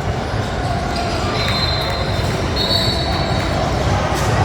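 Basketball game in a gym: steady court and crowd noise with two high, held squeals about a second long each, typical of sneakers squeaking on the hardwood floor.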